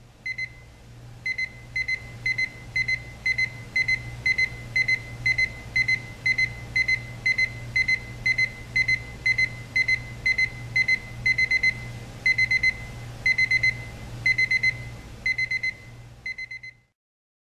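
Elgin 3455E digital electric alarm clock's ascending alarm sounding: a high electronic beep repeated in quick clusters about twice a second, the clusters getting longer and louder as it goes on, over a low steady hum. It cuts off suddenly near the end.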